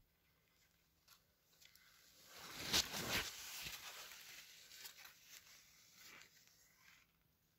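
Sunflower leaves rustling and brushing against the phone as it is pushed down between the rows, loudest about three seconds in, then trailing off into scattered light crackles.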